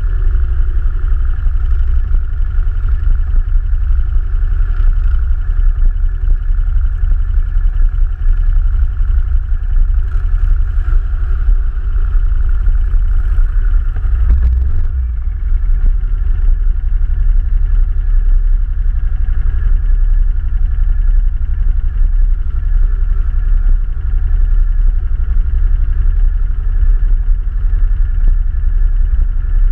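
ATV engine running steadily under way, with a heavy low rumble throughout and a brief change in the sound about halfway through.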